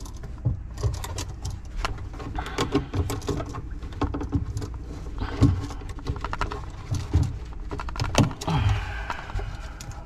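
Irregular small clicks, scrapes and rustles of gloved hands working a copper wire and a metal-strapped electrical outlet. The hot conductor is being bent around and secured under the outlet's terminal screw.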